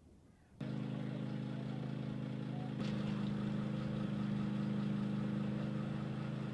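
A heavy diesel engine idling steadily. It cuts in abruptly about half a second in.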